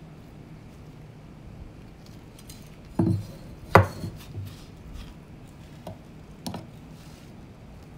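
A few short knocks and clatters of hard objects being handled, the loudest about four seconds in, over a low steady hum.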